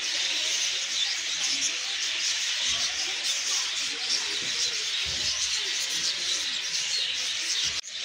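Dense, steady high-pitched chorus of many birds chirping, with faint human voices underneath and a brief drop-out near the end.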